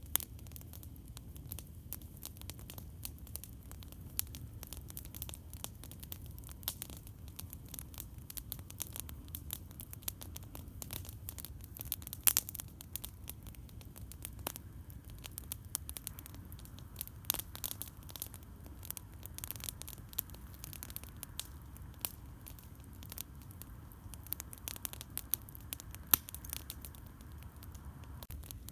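Wood campfire crackling, with dense irregular snaps and pops over a steady low rumble. One sharp pop about twelve seconds in and another near the end stand out.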